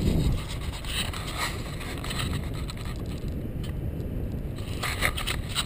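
Wind rumbling on the camera's microphone, a steady low noise, with a few sharp clicks and scrapes near the end as the camera is handled.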